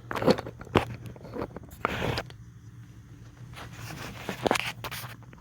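A few sharp clicks and a short scrape, the sound of things being handled, over a low steady hum.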